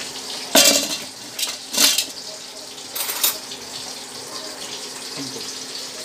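Clatter of pots and utensils in a kitchen, several sharp knocks in the first half, over a steady hiss, as vegetables are added to the pot.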